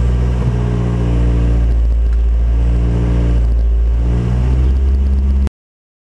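A 2005 Ford Focus's inline-four engine idling steadily, heard from the driver's seat, with slight wavers in pitch. It is running after a fuel filter change and started right up. The sound cuts off suddenly about five and a half seconds in.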